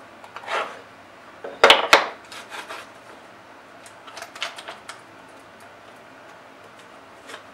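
Clatter of 3D-printed plastic featherboards being handled and adjusted on a wooden router table fence: two sharp knocks about two seconds in, then a run of light clicks and taps around four to five seconds in.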